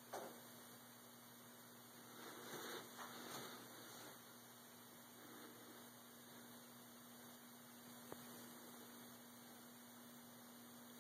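Near silence: a faint steady electrical hum under hiss, with light rustles about two to four seconds in and one small click later on.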